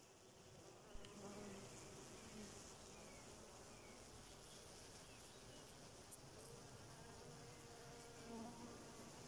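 A swarm of honey bees buzzing faintly, with single bees droning past now and then.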